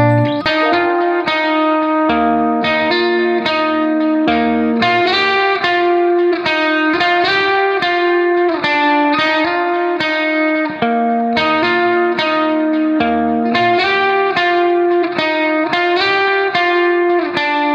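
Background music led by a plucked guitar playing a steady run of notes.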